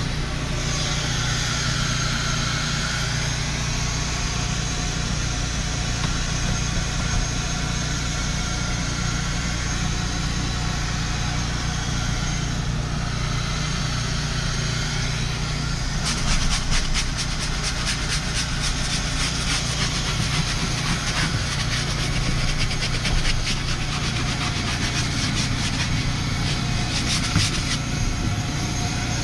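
Truck engine idling steadily. From about halfway on, a stiff hand brush scrubs the foam-covered ribbed rubber floor mat in rapid strokes.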